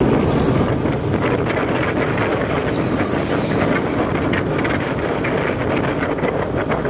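Wind rushing over the microphone of a moving motorcycle, over the steady running of its engine and tyres on the road.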